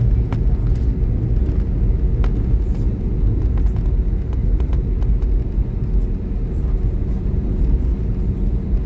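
Airbus A320 airliner on its takeoff roll, heard from inside the cabin beside the wing-mounted engine: a steady, loud low rumble of engine and runway noise with a faint steady hum over it.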